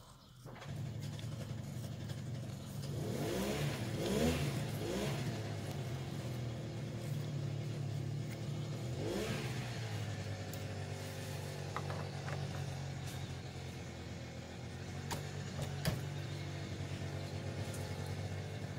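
An engine running with a steady low hum, revving up and back down briefly a few times in the first half. A few faint light clicks come later.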